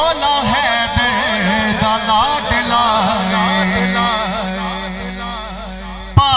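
Male voice singing a long wordless melismatic phrase of a devotional manqabat, its pitch wavering, over a steady held low note. A single sharp, loud knock just before the end.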